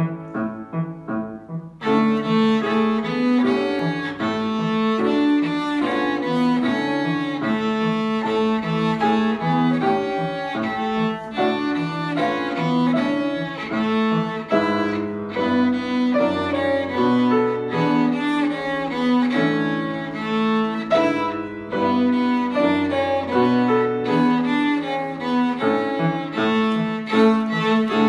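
A cello plays a slow singing melody of long bowed notes with piano accompaniment. For about the first two seconds the piano plays alone, closing its introduction, and then the cello comes in.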